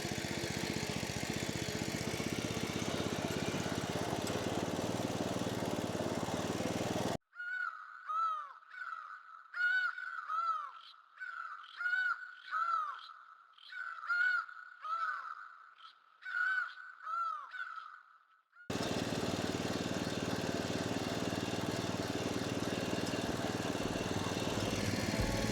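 A small engine running steadily, cut off abruptly about a quarter of the way in by a series of about a dozen loud, harsh bird calls, one after another, each with a falling arch in pitch; the engine noise cuts back in suddenly about two-thirds of the way through.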